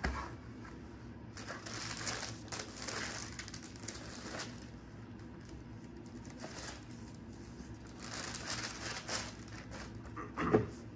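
Tissue paper rustling and crinkling as it is unfolded and pulled back inside a cardboard shoebox, in two spells of handling, after a soft knock as the box is set down.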